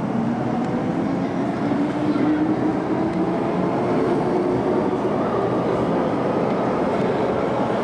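MTR underground train running through the station at speed without stopping, heard from the platform behind the screen doors: a loud, steady rush of wheels and running gear with faint tones over it.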